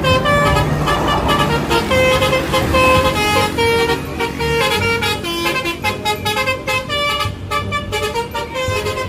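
Bus "telolet" horn playing a tune: a string of loud horn notes stepping up and down in pitch, in a quick pulsing rhythm.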